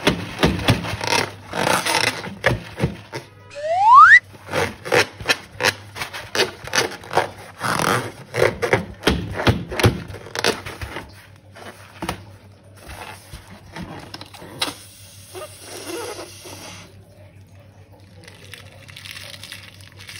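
Hands squeezing and rubbing a filled latex balloon, giving quick squeaks and crackles with one loud rising squeak about four seconds in. After about twelve seconds the sounds turn quieter and softer, as slime is squeezed out of the balloon into a bowl of foam.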